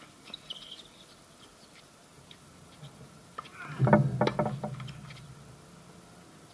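Tennis ball struck by rackets and bouncing on a hard court in quick succession about four seconds in, with a brief burst of a player's voice among the hits.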